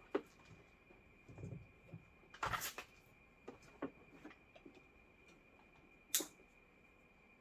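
Scattered small clicks, taps and rustles of hands handling wiring and tools, with a louder rustling scrape about two and a half seconds in and a sharp click about six seconds in. A faint steady high whine runs underneath.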